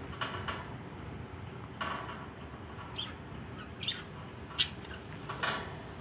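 Pet budgerigars (parakeets) chirping and chattering: about six short scratchy calls spaced through a few seconds.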